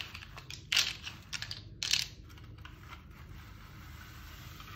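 Plastic alphabet letters clattering as they are gathered up and dropped onto a pile of letters, in a few quick bursts of clicks. The two loudest come about one and two seconds in.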